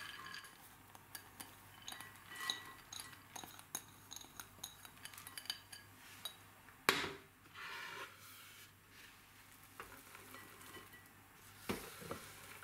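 Faint clinks and taps of glass bowls as diced pumpkin is tipped into a glass bowl of diced pork and chopped onion is slid off a wooden cutting board into it. A sharp knock comes about seven seconds in, and another near the end.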